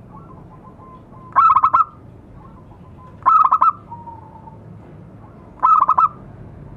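Zebra dove (local perkutut) cooing. It gives three short phrases of quick, clipped notes, about two seconds apart.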